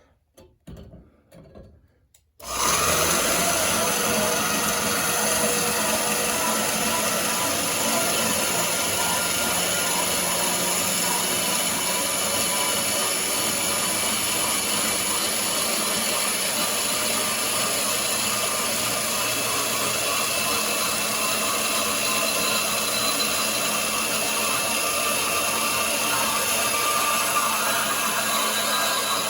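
Bauer 10-amp variable-speed portable bandsaw, set on speed 4, cutting through a welded 16-gauge mild steel tube. After a few faint clicks it starts abruptly about two seconds in and runs steadily through the cut.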